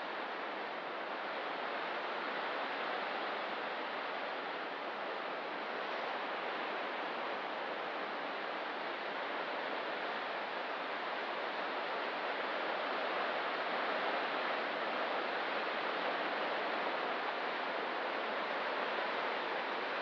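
Distant ocean surf making a steady, even wash with no separate breaks, swelling slightly in level around the middle.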